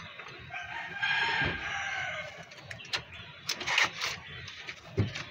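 A rooster crowing once, a long call of about a second and a half near the start, followed by a few sharp clicks.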